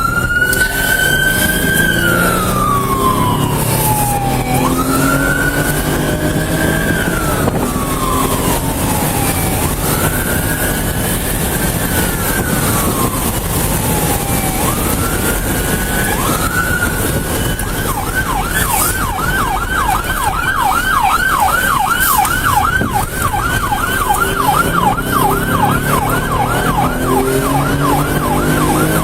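Police car siren, first in a slow wail rising and falling about every four seconds, then switching a little past halfway to a fast yelp of about four sweeps a second. Engine and road noise underneath.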